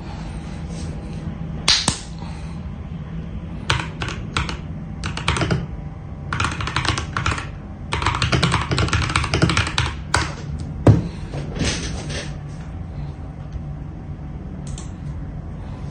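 Langtu GK65 mechanical keyboard, refitted with Akko switches and Akko PBT double-shot keycaps, being typed on for a sound test. The keystrokes come in short, irregular runs, with one single louder stroke about two-thirds of the way through.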